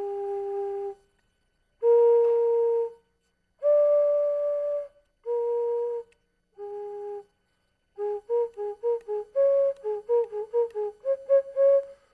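Wooden flute open at both ends with two finger holes, blown in clear single notes. It plays five held notes of about a second each, low, middle, high, middle, low, the lowest with both holes closed. From about eight seconds in it plays a quick run of short notes like a simple tune.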